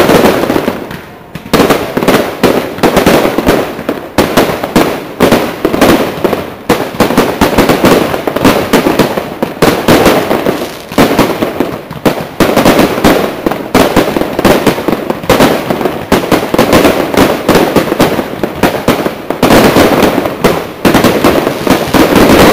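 Aerial fireworks display: shells bursting in rapid succession, several bangs a second, with no pause.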